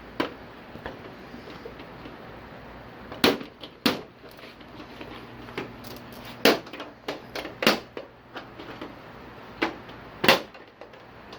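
Plastic snap clips of a TV's casing popping loose one after another as a flat screwdriver pries the casing open. There are about six loud sharp snaps at uneven intervals, with smaller clicks between them.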